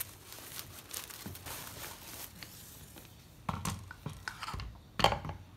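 Crinkling, rustling handling noise, with a few sharper knocks about three and a half and five seconds in.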